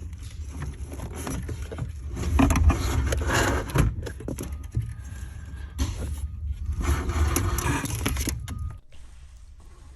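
Scraping and rustling with scattered clicks over a low rumble, louder in two stretches, as wiring and plastic parts are handled under a car's dashboard. The rumble stops shortly before the end.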